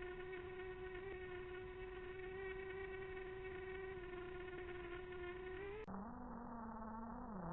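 Quadcopter drone's motors and propellers whining with a steady, buzzing hum. About six seconds in the pitch drops abruptly to a lower, duller hum that wavers slightly.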